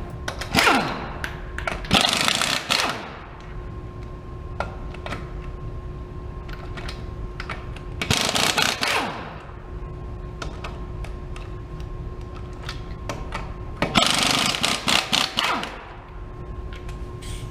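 Impact wrench running in about four short bursts, loosening and spinning off the wheel's lug nuts, over a steady background hum.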